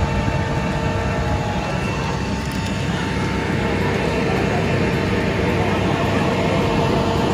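Steady engine drone with a low rumble and a faint, even hum.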